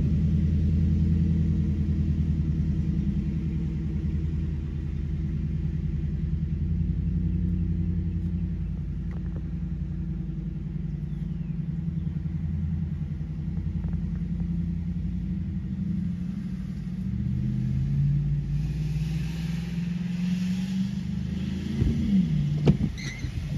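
Car engine running, heard from inside the cabin, a steady low rumble whose pitch rises slowly over the last few seconds and then drops. A hiss of water on the wet road comes in for a few seconds near the end, and a windshield wiper sweeps at the very end.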